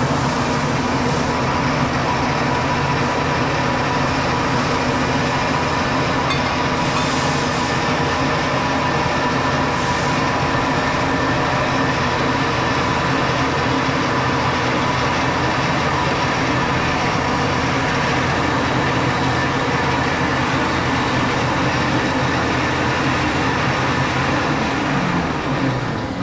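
Marvel 8-Mark-I universal vertical bandsaw running steadily with no cut under way: the blade drive motor and blade, with the coolant pump that runs whenever the blade is started. It begins to wind down near the end.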